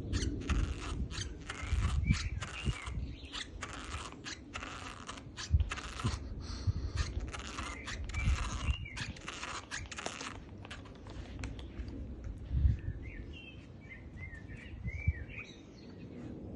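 A four-month-old pet's small teeth crunching and gnawing on a shoe: dense, crackly clicking for about the first ten seconds. Then the chewing fades and birds chirp in the background near the end.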